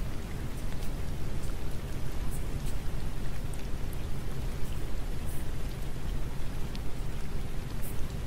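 Steady rain, a dense even patter with a low rumble underneath and scattered sharper drop ticks.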